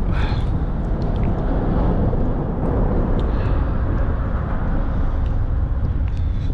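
Wind buffeting the microphone, a steady low rumble, with a few faint clicks scattered through it.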